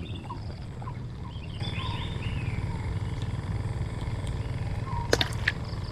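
Steady low rumble of outdoor background noise with birds chirping, and a few sharp clicks about five seconds in.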